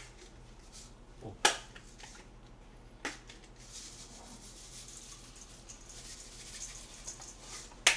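Seasoning shaker shaken over a steel mixing bowl of seasoned chives: a soft, high, gritty hiss of grains falling, from about halfway in until near the end. Before it, a sharp click about a second and a half in and a smaller one about three seconds in, as the container is handled.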